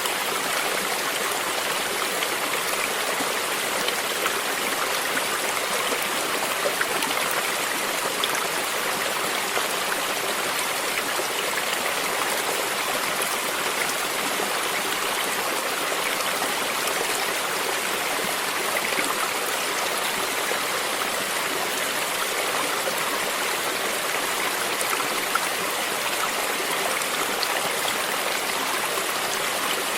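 Stream flowing: a steady, even rush of water, flecked with many small splashes and drips.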